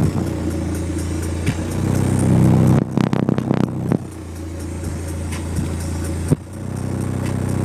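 A 15-inch Focus Acoustics Black MK5 subwoofer playing deep bass loudly, with its cone at large excursion. About three seconds in there is a second-long spell of rattling buzz.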